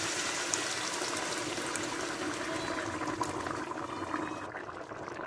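Water poured in a stream into a hot pot of rice and toasted vermicelli fried in ghee; the pouring thins out about four and a half seconds in.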